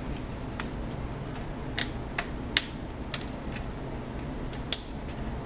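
Sharp plastic clicks, several of them at irregular intervals, from a Sony VAIO laptop's battery release latches being slid and the battery pack being worked out of its bay.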